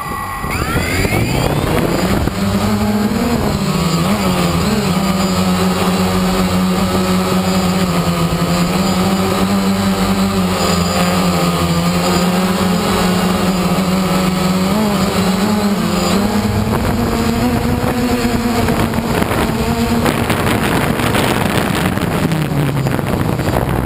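DJI Phantom 1 quadcopter's four electric motors and propellers spinning up quickly for takeoff, then holding a loud, steady buzz as it climbs, heard from the GoPro mounted on the drone itself. The pitch shifts slightly about four seconds in and again near the end as the drone manoeuvres.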